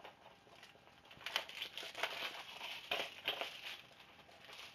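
DVD case and its packaging being handled to open it: irregular rustling and scraping for a few seconds, starting about a second in.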